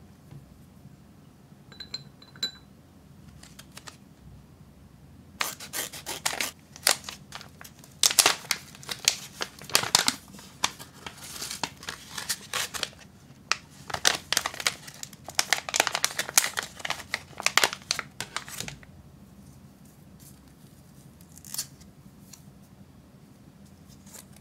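Foil-lined plastic tea pouch being opened and crinkled by hand as a pyramid tea bag is pulled out: a dense, crackly rustle lasting about thirteen seconds, with a few small clicks before it and one after.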